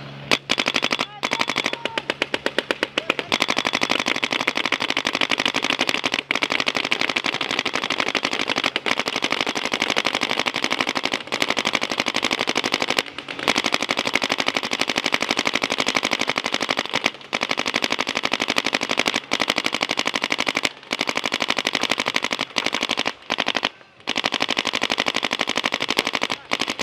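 Paintball markers firing long, very rapid strings of shots, with brief pauses between strings.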